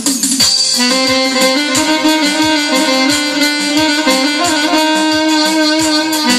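Korg Pa60 arranger keyboard played live: a sustained, gliding lead melody in a violin-like voice over the keyboard's drum accompaniment, with a steady kick drum about three beats a second.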